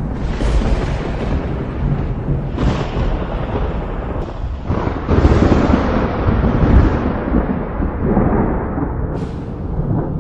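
Thunder rolling continuously, with several fresh claps and a heavy swell of rumbling in the middle, and a short sharp crack near the end.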